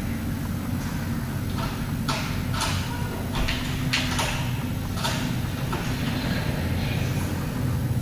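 Diesel engine of a heavy earthmoving machine running steadily, with a series of short harsh scraping or knocking noises over it in the middle of the stretch.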